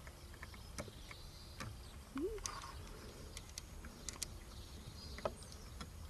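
Faint, scattered small clicks and scrapes of a screwdriver working a small flathead screw out of a BMW E46 ignition switch, with one short rising squeak about two seconds in.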